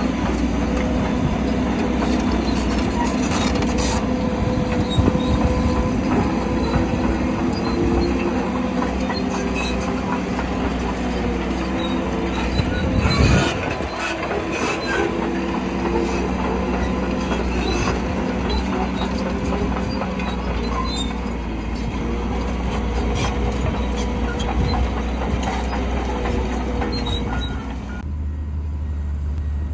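Shantui crawler bulldozer working: the diesel engine runs under load while the steel tracks clank and squeal. There is a loud knock about 13 seconds in. Near the end the sound changes abruptly to a duller, lower engine rumble.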